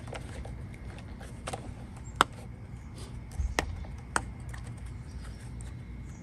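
Hands stretching and working a soapy Grip Puppies foam cover onto a motorcycle handlebar grip: a handful of sharp, short clicks and snaps, the loudest about two seconds in, over a low steady rumble.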